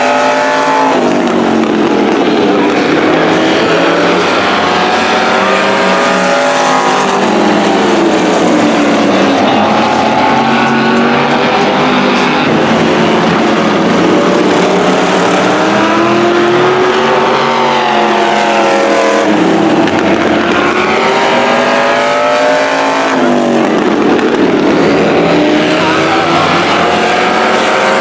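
Engines of several demo cars racing around an oval, repeatedly revving up and easing off in rising and falling sweeps as they pass one another.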